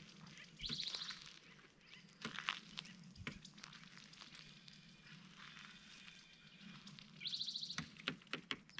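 A small bird gives a rapid, high chattering call twice, briefly about a second in and again near the end, among scattered sharp clicks.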